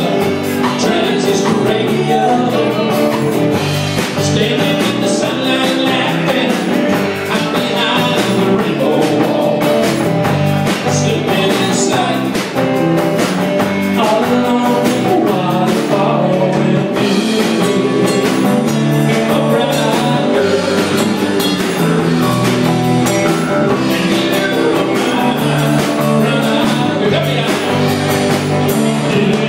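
A live band playing a rock number: guitars over a drum kit with steady cymbal strokes.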